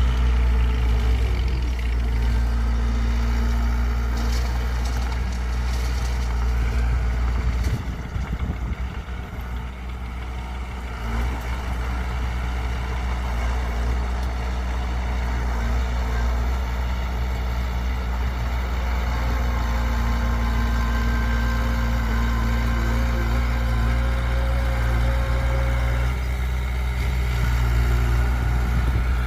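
Heavy diesel machinery running steadily with a deep engine hum, typical of an excavator and dump truck at work. The sound drops for a few seconds about eight seconds in, then comes back up.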